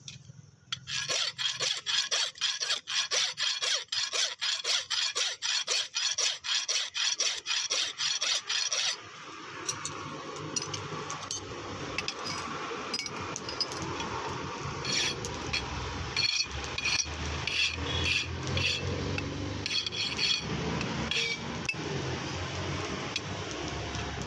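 A hand file rasping on metal in quick, even strokes, about four a second, for roughly the first nine seconds. After that comes a steady low rumble with scattered light clicks.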